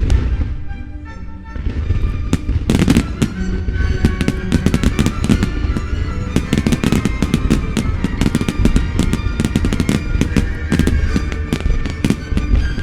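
A fireworks barrage: one loud bang at the start, then from about a second and a half in a dense, continuous run of rapid bangs and crackles. Music plays underneath.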